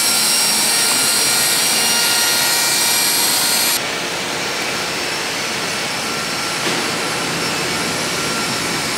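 Handheld die grinder running steadily at high speed with a high whine and hiss while hand-polishing a steel mould cavity. About four seconds in, the high hiss cuts off abruptly, leaving a lower steady machine noise.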